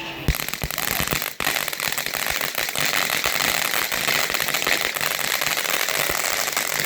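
A lit firework going off on the ground: a sharp pop a fraction of a second in, then a dense, continuous crackle of small pops over a steady hiss.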